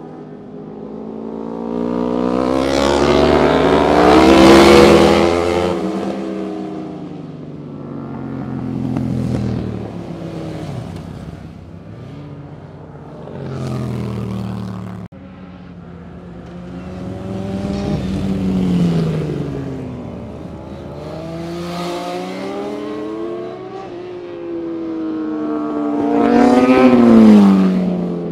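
Sport motorcycles passing one after another, each engine revving up and then dropping in pitch as it goes by. The loudest passes come about five seconds in and near the end.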